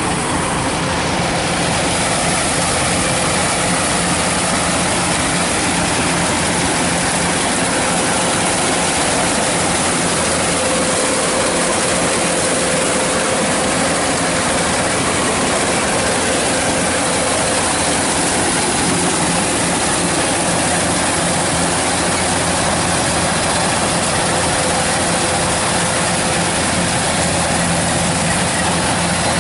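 Kubota DC-105X combine harvester running steadily while cutting rice: an even diesel engine and machinery drone with a steady whine in it.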